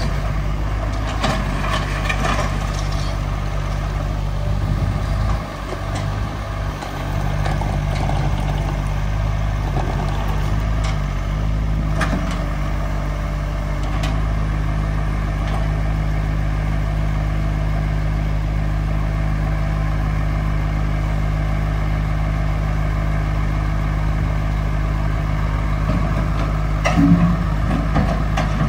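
Engine of a site machine such as the digger, running steadily, with a brief drop in level about five seconds in and a few sharp clanks, the loudest near the end.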